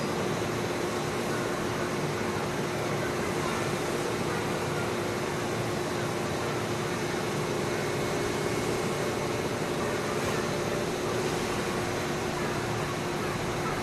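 Steady hiss and hum of a train-washing plant, its rotating brushes and water spray running as an electric commuter train rolls slowly through, with one constant humming tone.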